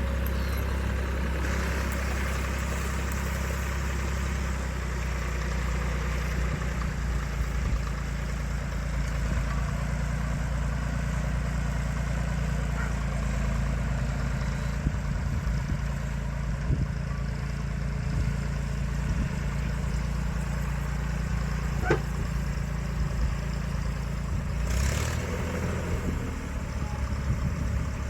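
A digging machine's engine running steadily at a low, even pitch. A single sharp knock comes about 22 seconds in, and the engine note shifts slightly near the end.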